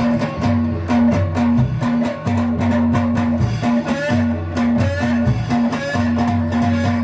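Loud band music: a repeating bass line under a plucked-string melody, with a steady beat.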